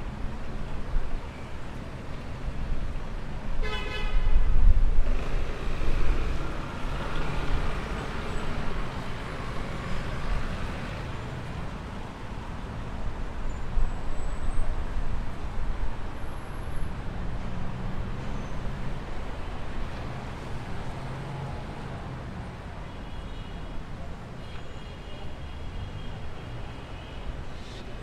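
City street traffic: vehicles driving past with a steady low rumble, and a short car horn honk about four seconds in, followed by the loudest moment as a vehicle goes by close.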